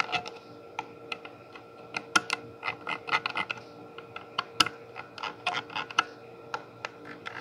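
Metal detented potentiometer knobs on a DS18 FRP-3.5K amplifier being turned with a screwdriver tip, clicking through their detents: many small sharp clicks in uneven runs.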